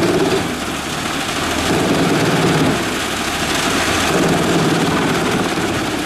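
Large wood chipper running under load as logs are fed through its grooved feed roller into the chipping mechanism: a dense, steady mechanical noise with the engine note shifting, dipping slightly about half a second in and again near the middle.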